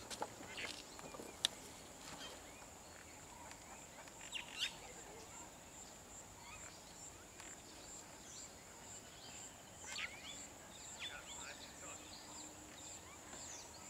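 Faint bird calls, scattered short chirps and sweeping whistles, over a steady high-pitched hum and outdoor background hiss.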